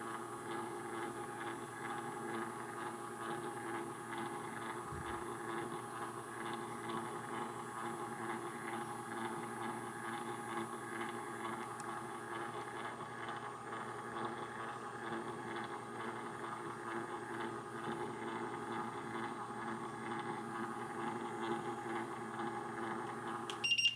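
A small electric motor running with a steady, unchanging hum, cutting off suddenly with a click near the end.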